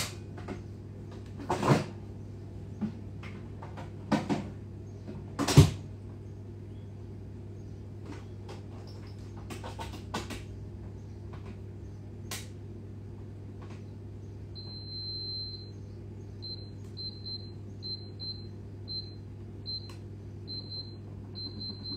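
Knocks and clatter of an oven door being opened and closed and baking trays going in, the loudest knock about five and a half seconds in, over a steady low hum. In the second half comes a run of short, high-pitched electronic beeps at one pitch.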